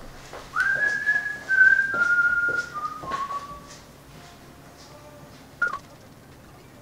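A person whistling a short tune: a few held notes stepping down in pitch, then quieter lower notes, and a brief downward slide near the end.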